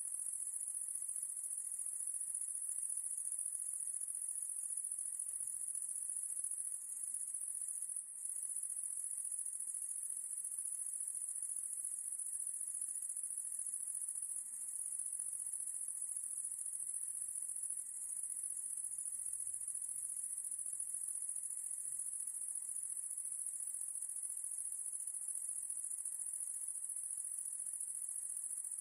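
A steady, high-pitched chorus of insects that runs unbroken and does not pulse.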